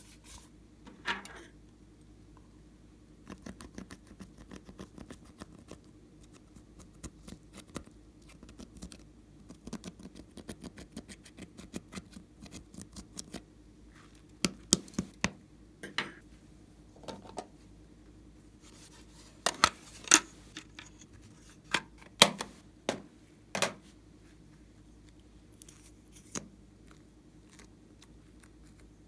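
Hands working slime and makeup products: a run of soft crackling clicks, then a dozen or so louder, sharp clicks and snaps.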